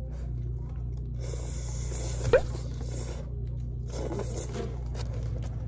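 Paper sandwich wrapper rustling and crinkling in the hands, in two bouts, with a brief sharp rising squeak a little over two seconds in; a steady low hum underneath.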